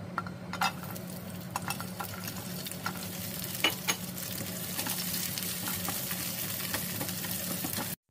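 Whole garlic cloves sizzling in hot oil in a nonstick pot, with scattered sharp pops and clicks, over a steady low hum. The sound stops suddenly near the end.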